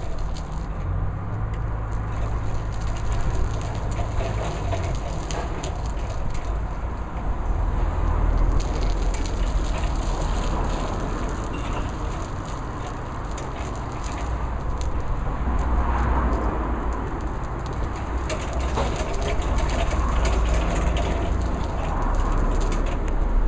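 Wind buffeting the microphone, a low rumble that rises and falls, over the faint running of a BT Rolatruc RRB1/15 electric reach truck as it drives and turns.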